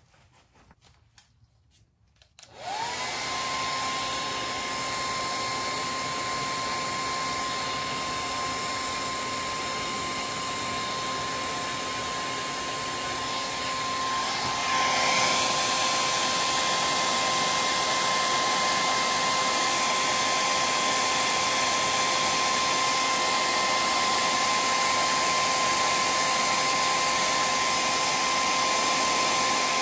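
Heat gun switching on a couple of seconds in, its fan spinning up to a steady rush of air with a high hum. About halfway through it gets louder and a lower hum joins in.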